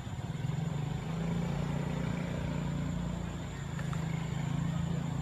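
A motor vehicle engine running steadily: a low, even hum that grows a little louder about half a second in.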